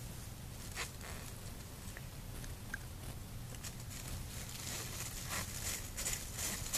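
A tabby cat licking and chewing a thin plastic shopping bag: the plastic crinkles and crackles in irregular little clicks, more often toward the end.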